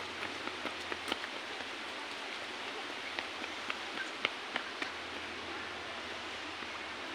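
Rushing water: a steady, even hiss with a few faint scattered ticks.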